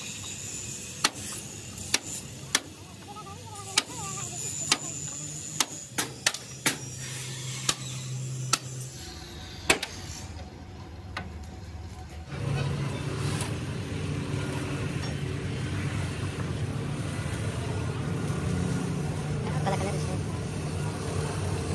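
Sharp knocks at irregular intervals, about ten in the first ten seconds, over a steady low hum. About twelve seconds in, a louder steady mechanical noise sets in and keeps going.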